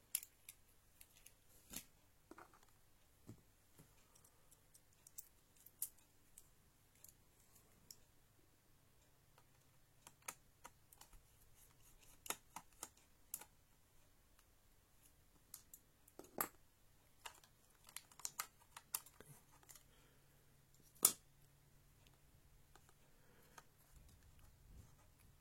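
Faint, irregular clicks and taps of a small precision screwdriver working the bottom-case screws of a laptop, with one louder click about three quarters of the way through.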